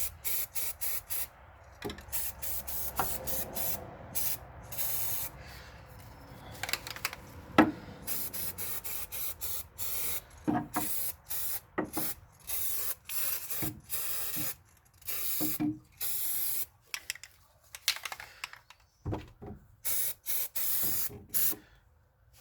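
Aerosol spray paint can spraying in many short bursts, about one to two a second, with a few sharp knocks between them.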